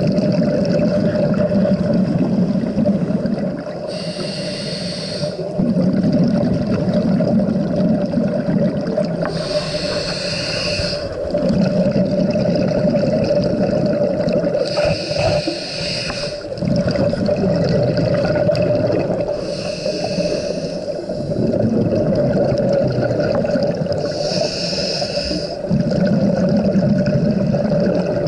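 Scuba diver breathing through a regulator underwater, heard close up. Each breath is a short hiss on the inhale, then a longer gurgling rush of exhaled bubbles, about every five seconds, over a steady hum.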